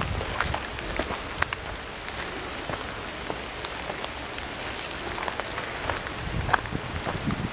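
Rain falling on leafy trees and the forest floor: a steady hiss with many scattered, sharp drop ticks.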